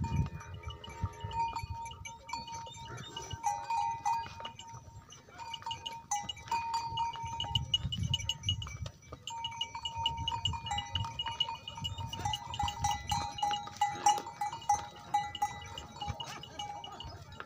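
Metal bells hung from water buffaloes' collars clanking and ringing over and over as the herd walks, two close pitches sounding in short repeated strikes.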